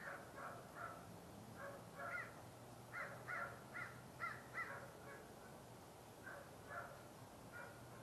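A corvid calling outdoors in a series of about a dozen short, harsh caws, in bunches, quickest and loudest around the middle of the run.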